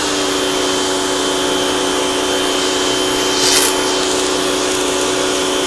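Rock & Rocker 3000 PSI electric pressure washer running with the trigger held and water spraying from a 40-degree tip. A steady motor-and-pump hum carries a thin high-pitched scream above it, with a brief louder hiss about halfway through. The scream is typical of a failing pump, maybe the motor, on this worn unit.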